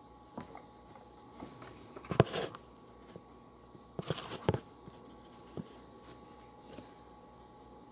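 Handling noises: a few sharp knocks and short rustles, loudest about two seconds in and again around four seconds, as the phone filming on the table is touched and adjusted, over a faint steady hum.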